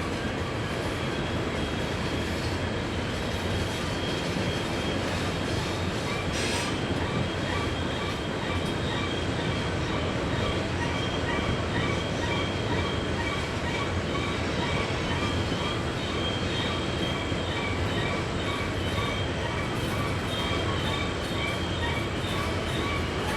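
Freight train rolling through a tight curve, a steady rumble with wheels squealing on and off at a few fixed high pitches.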